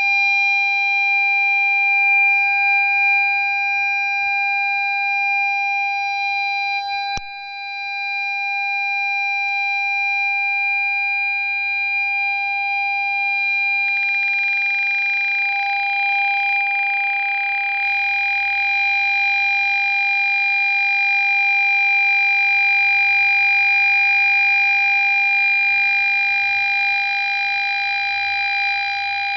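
Ford Fiesta parking sensor warning sounding one unbroken steady tone, the solid tone that signals an obstacle at the closest range. There is a brief click about seven seconds in, and a hiss joins about halfway through.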